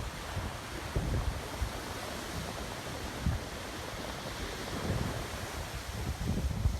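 Ocean surf washing steadily onto a sand beach, with wind buffeting the microphone in irregular low gusts.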